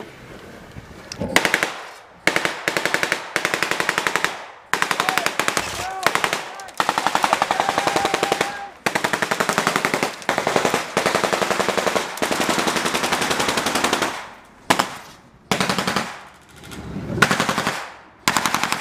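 Machine-gun fire in long, rapid bursts one after another, with short gaps between them: a strafing run by a Jeep-mounted gun.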